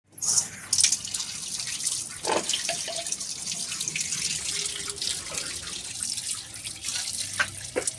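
Tap water pouring into a black two-handled karahi and splashing out as the pan is rinsed and rubbed clean by hand, with a few short knocks.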